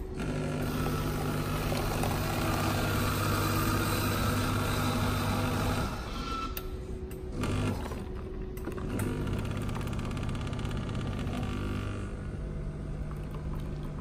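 Automatic bean-to-cup coffee machine making a coffee: its motor hums steadily for about six seconds, stops, briefly restarts, then runs again from about nine to twelve seconds while coffee pours into a paper cup.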